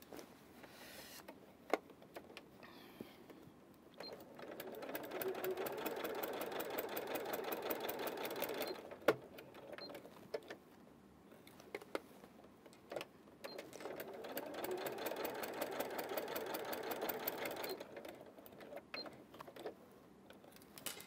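Domestic electric sewing machine stitching bias binding onto a T-shirt sleeve, running in two spells of about four to five seconds with a pause between. Between and around them come small clicks and the rustle of the fabric being handled and repositioned.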